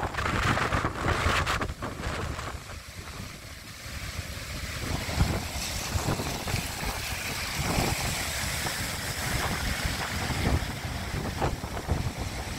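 Gale-force wind buffeting the phone's microphone with a low rumble, over the noise of heavy storm surf breaking against the sea wall. The gusts are strongest in the first couple of seconds, ease off briefly, then settle into a steadier roar.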